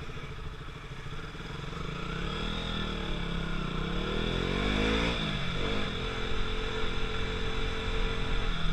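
KTM RC 200's single-cylinder engine running through its stock exhaust: the engine note climbs for a few seconds, drops sharply about five seconds in, then holds steady.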